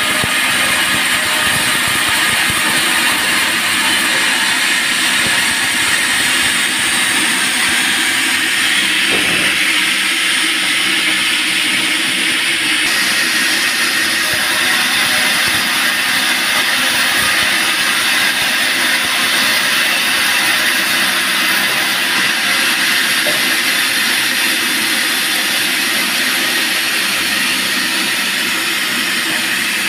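Band sawmill sawing teak timber: a loud, steady hiss of the blade over an even machine hum, with no break.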